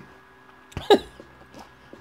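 A man's single short wordless vocal sound about a second in, over faint room hum.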